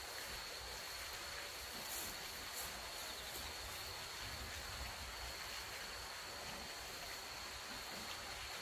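Night insects trilling steadily on one unbroken high note, over a faint low rumble.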